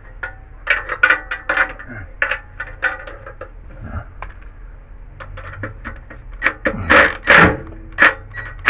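Wrenches clicking and clinking on steel mounting bolts as they are loosened a little: irregular metal taps, some ringing briefly, the loudest cluster about two thirds of the way through.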